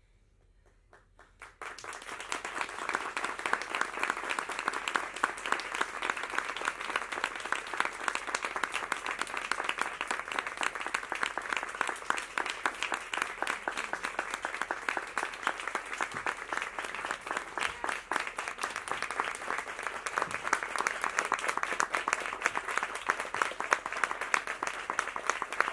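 Audience applauding: a few scattered claps about a second in, swelling at once into dense, steady applause.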